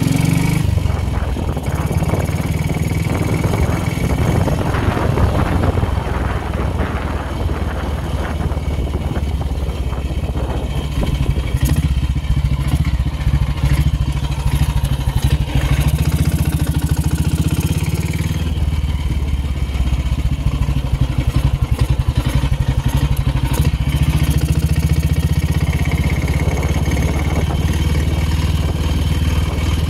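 Motorcycle engine running as the bike is ridden, heard from on the bike, with a steady low drone throughout.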